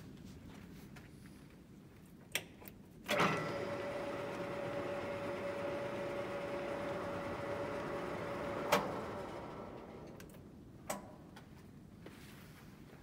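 Koyo KLS-700G engine lathe: after a click, the spindle starts suddenly about three seconds in and runs with a steady gear whine. A clunk about six seconds later stops the drive, and the headstock winds down to a stop, with another click near the end.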